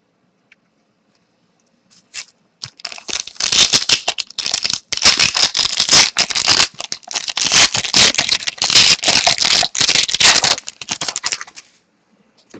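A trading-card pack wrapper being torn open and crinkled by hand: a dense run of sharp crackling and rustling that starts a couple of seconds in and stops near the end.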